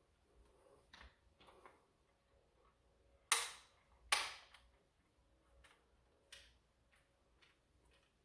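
Sharp plastic clicks from a D-Dart Blizzard toy dart blaster being worked by hand: two loud clicks about a second apart near the middle, with fainter clicks before and after. The blaster does not fire, which the owner puts down to weak batteries.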